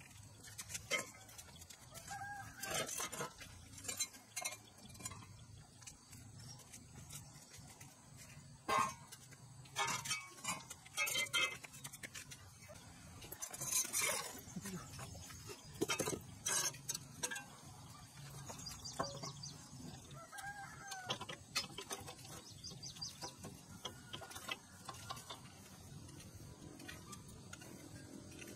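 Chickens clucking and a rooster crowing twice, with scattered metal clanks and knocks as the wheel and rotary tiller blades of a walk-behind tiller are handled.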